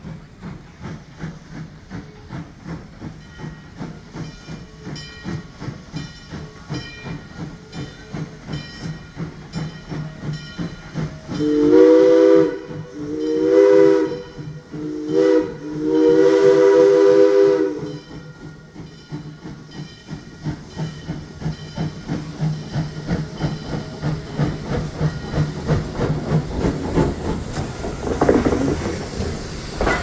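Steam locomotive standing with steam hissing and a steady rhythmic pulsing. About halfway through it sounds its chime whistle as a chord in four blasts, long, long, short, long: the grade-crossing signal.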